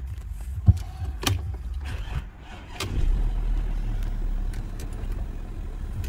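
Car engine idling, heard from inside the cabin as a steady low rumble that grows a little stronger about halfway through, with a few sharp clicks in the first three seconds.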